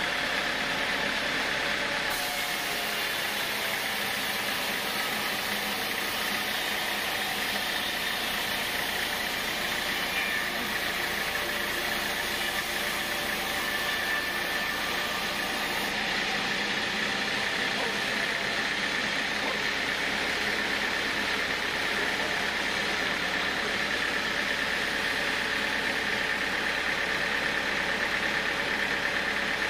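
Band sawmill running, its blade cutting lengthwise through an acacia hardwood beam: a continuous machine noise with a steady whine. The sound brightens about two seconds in and softens around sixteen seconds.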